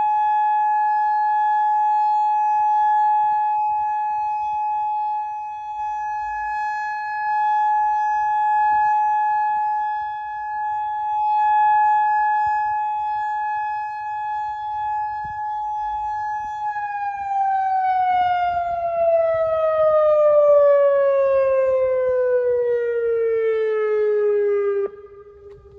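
Federal Signal Modulator electronic outdoor warning siren sounding a steady tone, then winding down with a smooth falling pitch over its last several seconds. The sound drops away abruptly near the end.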